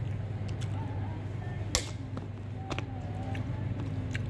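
A plastic fork clicking against a clear plastic takeaway container while noodles are twirled, with one sharp click a little under two seconds in and a few lighter ticks, over a steady low room hum.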